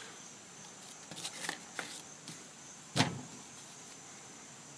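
Hands handling a freshly cut chili pepper and knife: a few soft clicks, then one sharp knock about three seconds in.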